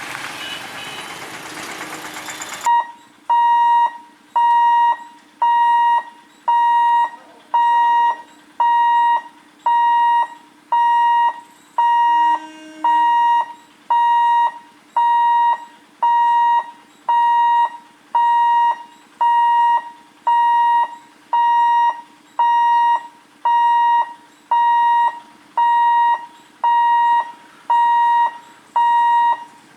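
Electronic warning alarm beeping steadily about once a second, each beep a single high tone about half a second long, over a faint steady hum; it typically sounds at a railway level crossing while the gate is closed for a train. It starts suddenly about three seconds in, after a short stretch of loud traffic noise.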